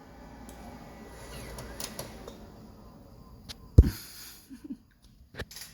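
Macintosh IIfx's 800K floppy drive ejecting its disk by motor, one loud clunk a little under four seconds in, then a few lighter clicks, over a low steady hum from the computer.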